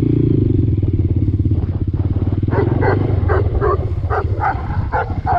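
Honda Grom's small single-cylinder four-stroke engine running as the bike is ridden across a pasture, with short higher-pitched sounds over it in the second half.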